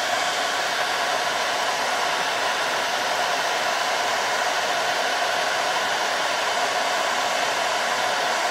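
Handheld hair dryer running on its high, hot setting: a steady rush of blown air with a constant motor tone.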